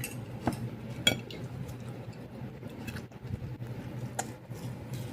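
A few light clinks and taps of tableware during eating, the sharpest about a second in with a brief ring, over a low steady hum.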